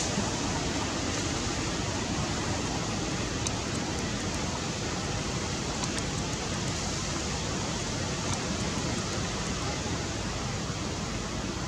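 Steady, even hiss of outdoor background noise, with a few faint clicks.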